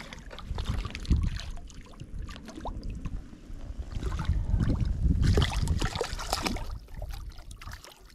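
Hooked brown trout splashing and thrashing at the water's surface as it is drawn in close and grabbed by hand, the splashes thickest around the middle. Underneath is a low rumble of wind on the microphone.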